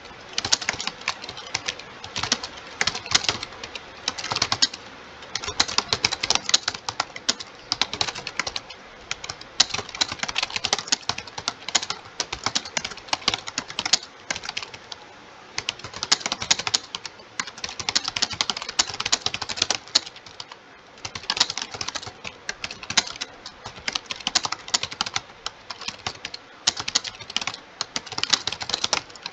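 Fast, continuous typing on a computer keyboard: dense key clicks in runs of several seconds, broken by brief pauses three times.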